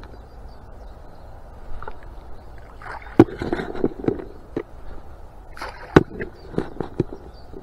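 Carp bait (amorce) being thrown into the shallows to bait a small area: clusters of sharp splashes and knocks, one group about three seconds in and another about six seconds in.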